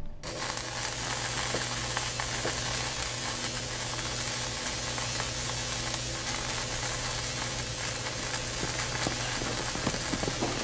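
Welding crackle and sizzle as a metal door is welded shut, with a low steady hum beneath.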